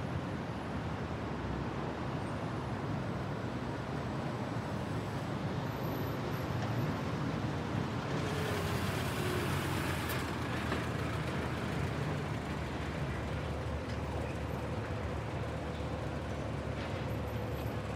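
Busy road-intersection traffic: a steady rumble of car, bus and truck engines and tyres. About eight seconds in, a loud hiss rises and lasts two to three seconds before fading back into the traffic.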